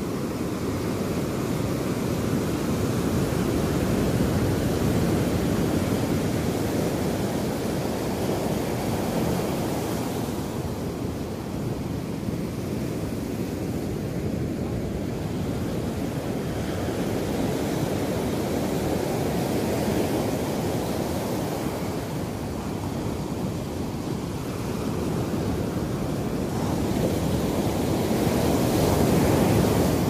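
Ocean surf: small waves breaking and washing up over a sandy beach, a steady rushing wash that swells and eases in slow surges, loudest near the end.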